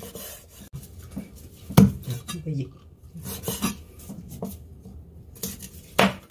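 Chinese cleaver chopping a raw squab into pieces on a wooden cutting board: several sharp chops, the loudest about two seconds in and near the end, with softer knocks of the blade and meat between.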